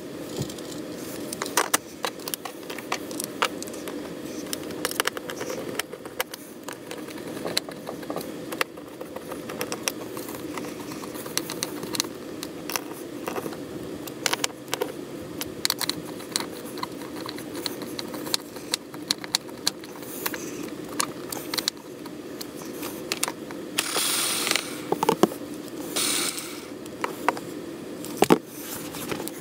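Screws being turned by hand with a screwdriver into a Pelican 1650 case's plastic wheel housing: irregular small clicks and taps of the tool and hardware, with a few louder scraping rustles near the end, over a steady hum.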